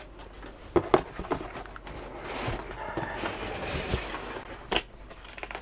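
Cardboard box flaps being lifted and folded open: cardboard scraping and rustling, with a few sharp knocks about a second in and again near the end.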